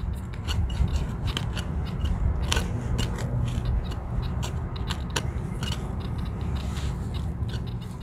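Handling noise on a handheld recording device: irregular sharp clicks and rubbing over a low rumble.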